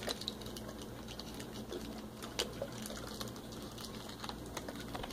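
Scattered light clicks and crinkles of a plastic water bottle being handled and drunk from, over a faint steady hum.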